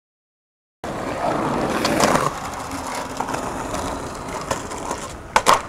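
After nearly a second of silence, skateboard wheels rolling on concrete and scraping along a concrete ledge, with small clicks from the board. Near the end come two sharp clacks of the board in quick succession.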